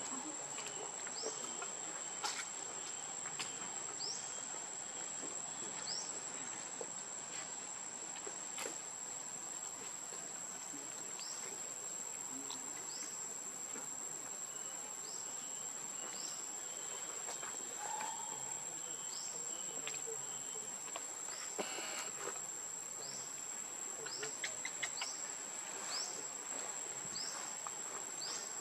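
Steady high-pitched insect drone, with a short rising chirp repeating about once a second and a few faint clicks.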